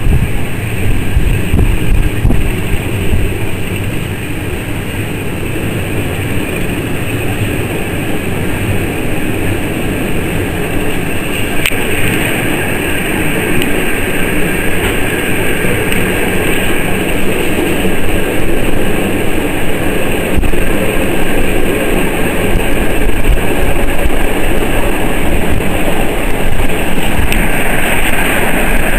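A TLK passenger coach running along the track: a steady rumble of wheels on rails with a hiss over it. The sound gets gradually louder as the train picks up pace, and the hiss strengthens from about midway.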